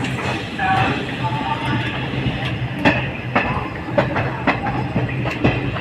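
Indian Railways train moving along the track, its wheels clicking irregularly over rail joints above a steady rumble and hum.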